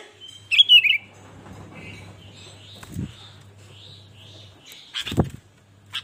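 Sooty-headed bulbul calling: a loud, quick warbled phrase about half a second in, then a run of soft repeated notes. Near the end comes a thump and flutter as the bird flies up from its perch.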